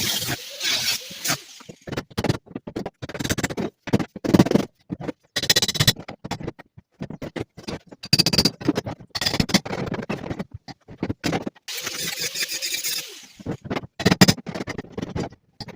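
Sped-up audio of metal fabrication work: choppy stretches of hissing tool noise, scraping and clatter, chopped up by many quick edits.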